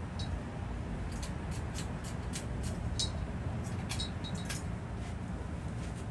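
Craftmade Decorative 42-inch ceiling fan with a 153x8 mm spinner motor, running with a steady low hum. Faint light ticks come and go between about one and five seconds in.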